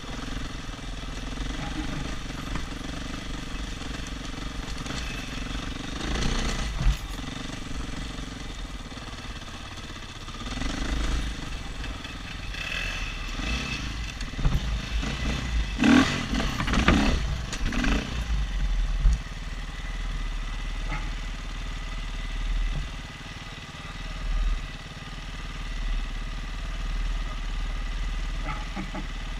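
Single-cylinder KTM 500 EXC dirt bike engine running at low trail speed, heard from the rider's helmet, with the other rider's motorcycle ahead. The revs rise and fall with bursts of throttle and some clatter about halfway through, the loudest spell a little past the middle.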